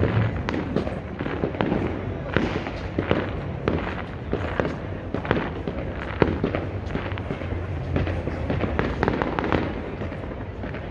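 Homemade fireworks and firecrackers going off all across the city: a dense, unbroken run of overlapping sharp bangs and crackles, some near and loud, many distant, over a steady low rumble.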